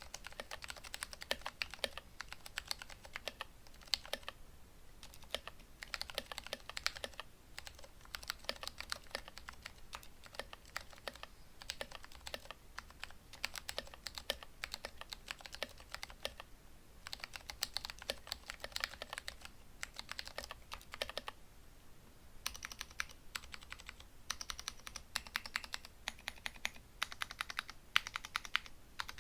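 Typing on a Vortex ViBe mechanical keyboard fitted with Cherry MX Clear switches that have been lubed with Tribosys 3203, given 62 g springs and band-aid modded stabilizers. Rapid keystrokes come in runs broken by a few brief pauses.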